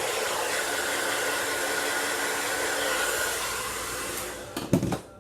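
Hair dryer blowing steadily on the lace glue, drying it before the lace is pressed down. It stops near the end, with a few sharp knocks as it is handled.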